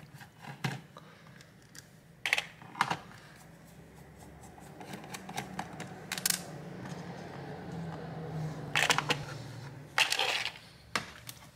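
Scattered light clicks and taps of a screwdriver and small screws handled against a laptop's plastic bottom case during screw removal.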